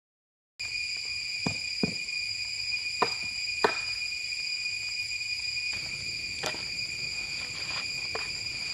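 A steady, high-pitched insect chorus, the constant drone of tropical forest insects, starting about half a second in. A few sharp clicks or snaps are scattered through it.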